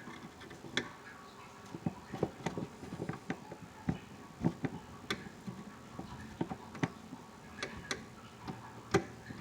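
Flathead screwdriver tapping and clicking against a plastic wire-harness connector on a furnace control board as it pries at the latch tab, in irregular small clicks; the connector is stuck and won't let go.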